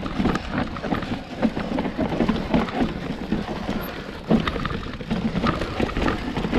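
Mountain bike clattering over a rough, rocky descent: a dense run of irregular knocks and rattles from the tyres and bike hitting stones, over a low rumble.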